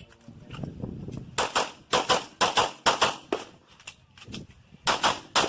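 Pistol shots fired in quick strings: a rapid run of shots starts about a second in, then a short pause, and another quick string near the end.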